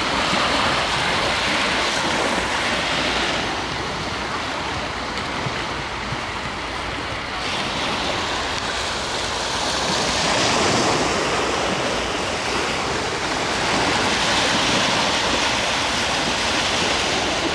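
Small ocean waves breaking and washing up a sandy beach, a steady rush of surf that swells and eases every few seconds.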